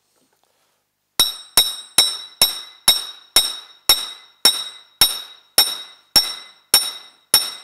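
Steady hammer blows on metal, about two a second, starting about a second in, driving a bearing down onto a vintage Ski-Doo Elan drive axle shaft held in a vise. Each strike rings with a bright metallic ring that fades before the next.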